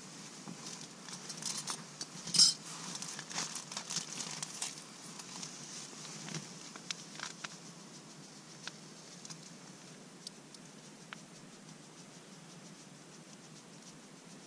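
Camp-gear handling: rustling of plastic and paper packets with light clicks and clinks of a steel cup, one sharp knock about two and a half seconds in. The handling is busiest in the first five seconds, then thins to scattered ticks.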